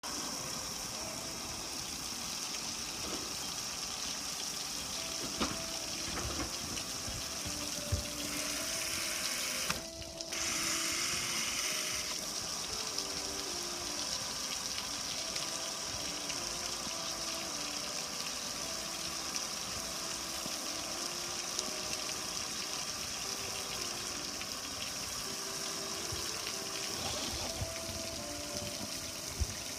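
Water from a garden hose with a hose-end soap sprayer, hissing steadily as it splashes onto a gas grill's metal lid and panels. The spray cuts out for a moment about ten seconds in, then comes back stronger for a couple of seconds.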